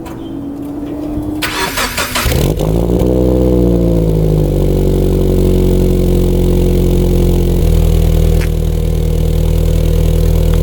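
Subaru BRZ's flat-four boxer engine, breathing through an aftermarket single-exit catback exhaust, starting up: a brief crank, the engine catches about two seconds in, flares up in revs and settles into a steady idle, which drops a step lower near the end.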